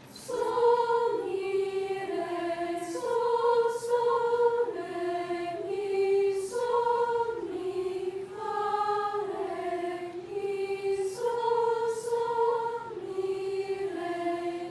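A choir of mostly female voices singing a short solfège pentachord melody a cappella. The notes move up and down by step, each held about a second.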